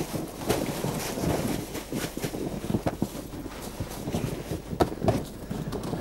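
Dry leaf litter rustling and crackling in irregular bursts as it is spread by hand over packed snow, laying the insulating leaf layer between snow strata in an ice pit.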